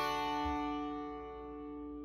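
Norman 12-string acoustic guitar: the last strummed chord rings out and slowly fades, with no new strums.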